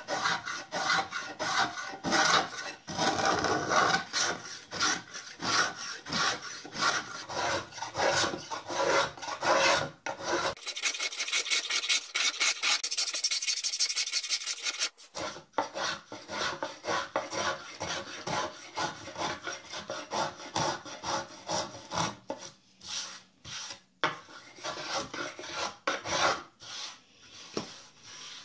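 Small hand plane shaving the rounded wooden roof of a toy bus in quick, repeated strokes, each one a short scrape of the blade across the wood. Around the middle the strokes give way to a few seconds of steadier hiss.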